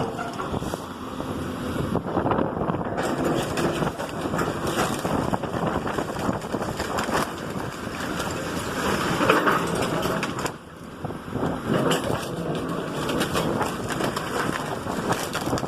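Heavy machinery tearing down a house: an engine running under continuous crunching and cracking of breaking debris, easing off briefly about ten and a half seconds in.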